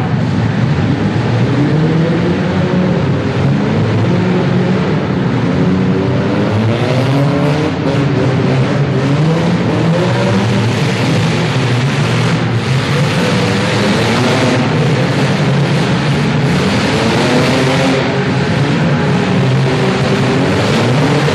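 Several compact demolition-derby cars' engines revving together, with many pitches rising and falling over one another as the cars accelerate and manoeuvre.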